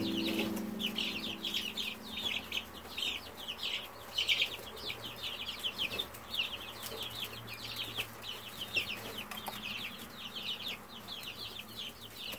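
A brood of three-week-old chicks peeping nonstop, many short, high, falling peeps overlapping with no pause.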